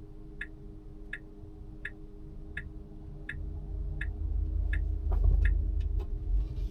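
Tesla turn-signal indicator ticking steadily, about three ticks every two seconds, with low road rumble building from about three seconds in.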